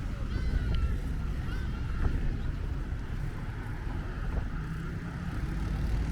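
Steady low rumble of road traffic, with a few faint high chirps.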